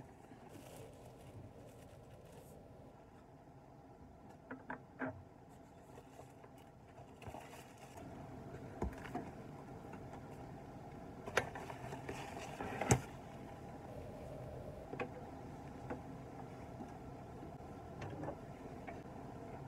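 Light knocks, clicks and rustling as study things are taken out of a backpack and set down on a desk. The sharpest knocks come about 11 and 13 seconds in, over a faint steady room hum.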